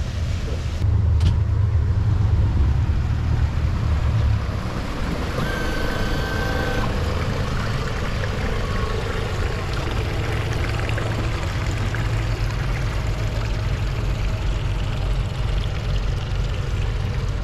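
Twin Suzuki DF200APX four-stroke outboards idling quietly just after their first start, a steady low rumble with water noise around it, louder for the first few seconds. A brief high beep sounds about six seconds in.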